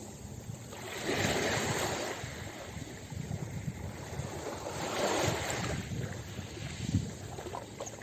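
Small sea waves washing up onto a pebble beach in two swells about four seconds apart, with a brief sharper knock near the end.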